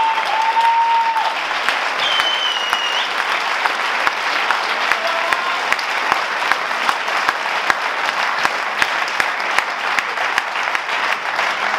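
Audience applauding, with a dense patter of many hands clapping throughout. A couple of long held high notes rise above the clapping in the first three seconds.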